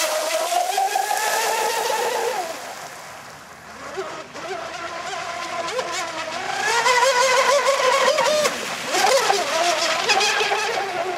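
Electric RC speed boat running flat out on a 6S LiPo setup: a high motor-and-propeller whine over the hiss of spray. The whine wavers in pitch, fades about three seconds in as the boat moves off, and builds again loudly from about six seconds in as it comes back past.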